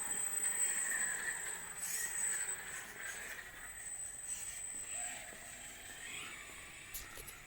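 3D-printed Tarmo4 RC car running, its electric drive giving a steady high-pitched whine over a hissing rush, fading as the car moves away.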